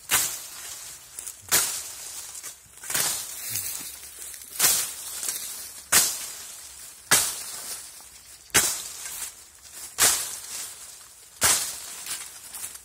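A sharpened shovel blade chopping through thick raspberry canes: about nine sharp strikes, one every second and a half or so, each followed by a brief rustle of the canes.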